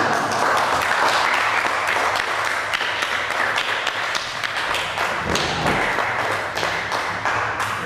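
Audience applauding: many hands clapping steadily, tapering off slightly near the end.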